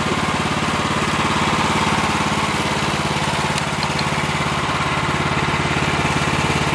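Small gasoline engine of a pressure washer running steadily, an even low throb with no change in speed.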